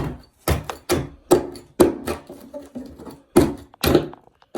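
A hand tool being worked against the floor, making a series of sharp knocks and scrapes about two a second, with a gap around three seconds in.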